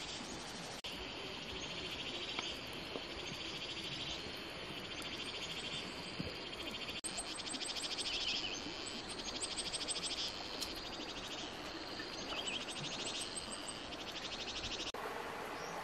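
Insects chirring: several overlapping high-pitched, rapidly pulsing trills, some starting and stopping, over a faint steady background hiss.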